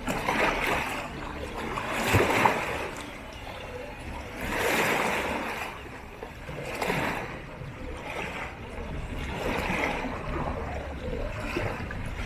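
Small sea waves splashing and lapping against shoreline rocks, swelling every two or three seconds.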